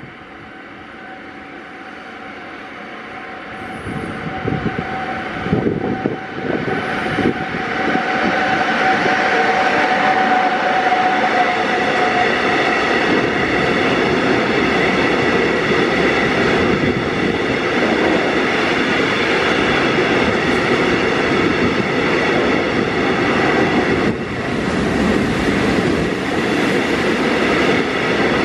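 Newag Dragon six-axle electric locomotive approaching and passing at speed, growing louder over the first several seconds with a clatter of wheels as it goes by. It is followed by a long train of open coal wagons rolling steadily past with continuous wheel-on-rail noise.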